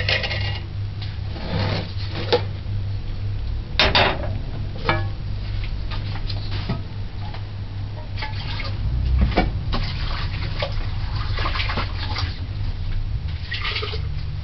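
Metal ladle knocking now and then against a metal pot of liquid sorrel drink, with some liquid sloshing, over a steady low hum.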